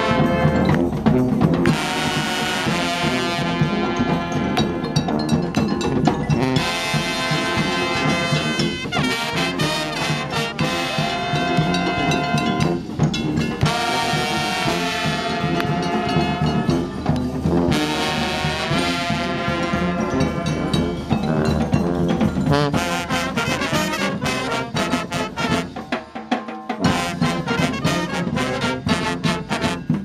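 Street brass band playing loud, continuous up-tempo music: sousaphones on the bass line, trombones and trumpets with drums. The low bass drops out for a moment near the end.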